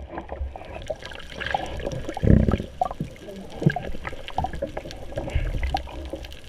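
Water sloshing and gurgling around an underwater camera housing held just below the surface, with scattered small clicks and a low whooshing surge a little over two seconds in.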